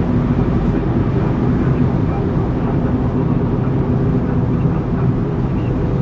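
Steady road and engine noise heard inside a moving car's cabin: an even low rumble with a faint hum, no sudden events.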